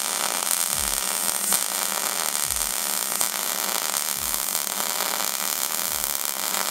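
MIG welder arc welding a steel bracket to a steel frame, with a steady crackling hiss that holds even throughout.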